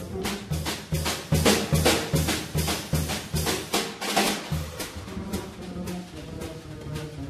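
Double bass and drum kit playing a jazz duet: quick, steady strokes on snare and bass drum over repeating low bass notes.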